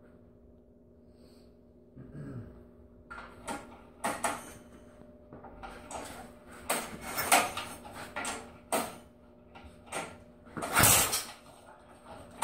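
Irregular knocks, clicks and metal clatter from hands working over a lawn tractor's small Briggs & Stratton engine before a start attempt, with one louder scrape near the end. The engine is not running.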